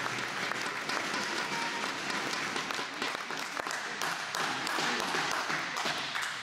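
Spectators applauding: a steady spread of clapping with many sharp individual claps.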